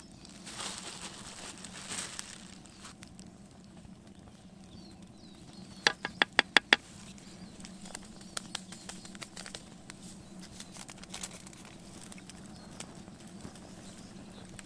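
Dry flour stirred and scraped with a wooden spoon in a small plastic camp cup. About six seconds in comes a rapid run of about six sharp taps, the loudest sound, followed by scattered light clicks.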